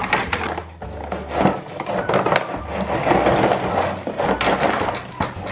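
Cardboard packaging rustling and scraping as hands pull plastic Play-Doh molds and tools out of the box's cardboard tray, with irregular sharp clicks of hard plastic pieces knocking together. Quiet background music with a low bass runs underneath.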